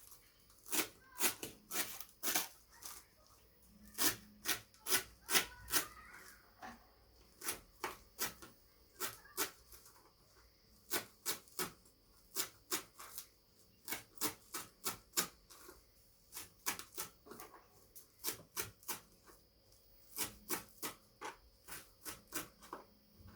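Knife chopping fresh herbs on a cutting board: runs of quick sharp taps, a few a second, broken by short pauses.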